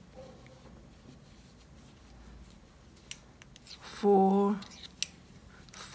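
Faint clicks and taps of metal circular knitting needles as stitches are worked in chunky yarn. A short single spoken word comes about four seconds in and is the loudest sound.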